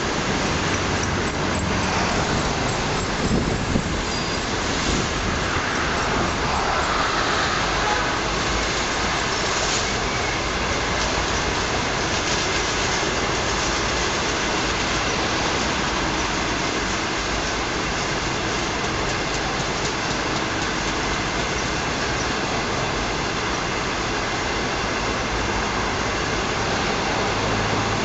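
Passenger train's coaches rolling past on the rails: a steady, unbroken noise of wheels running on the track that holds its level throughout.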